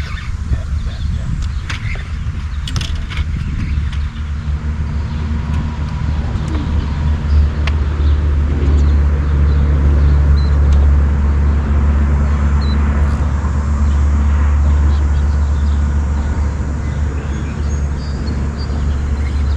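Bass boat outboard motor running under way, with a steady low drone that builds over the first several seconds and then holds, over wind and water rush.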